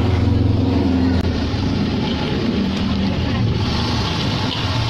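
A steady low motor hum. About three and a half seconds in, a hissing sizzle comes up as egg fries in hot oil in a wok over a gas burner.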